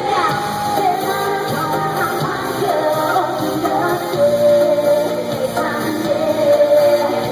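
K-pop song performed live over the hall's sound system, with women's voices singing a melody over a band track with a steady beat.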